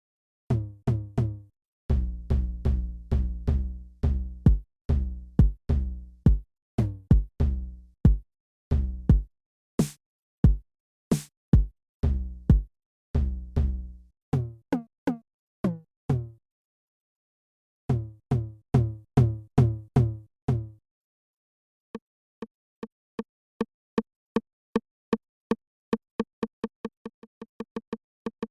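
EGDR909 drum machine app, a software emulation of the Roland TR-909, playing programmed patterns of deep kick drum and pitched drum hits, with two bright cymbal hits about ten seconds in. After a short pause, a run of lighter hits starts sparse and speeds up near the end.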